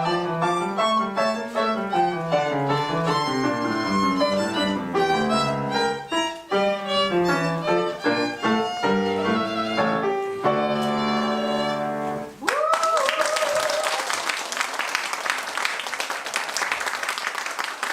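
Violin playing the closing bars of the first movement of a concerto for two violins, with piano accompaniment, ending on a long held chord. Audience applause breaks out as the chord stops, with a brief whoop rising over it.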